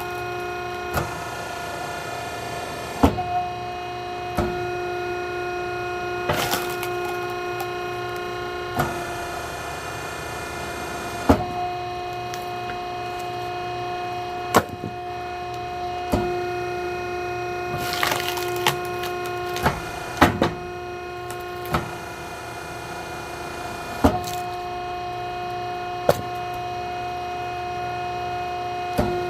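Oak firewood logs knocking and clattering against one another, one sharp knock every second or two, over a steady engine drone.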